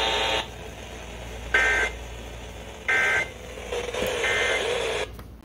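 Three short EAS end-of-message data bursts received over weather radio: brief two-tone digital squawks about 1.3 seconds apart, with radio hiss between them. They signal that the alert message has ended.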